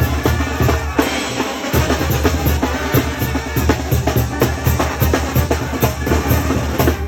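Street band percussion, bass drum, snare and cymbals, playing a fast, steady beat, with the bass drum dropping out briefly about two seconds in.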